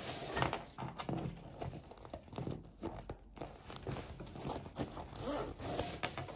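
Zip on a fabric carry bag being worked open, a run of small irregular clicks with the nylon bag rustling under the hands.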